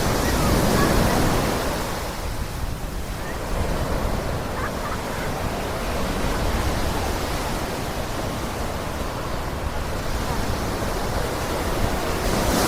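Ocean surf washing onto a sandy beach, a steady rush of water that swells about a second in and again near the end.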